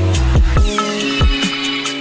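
Phonk-style electronic music: heavy bass that cuts out about a third of the way in, leaving steady hi-hat ticks, a falling sweep and short sliding bass notes.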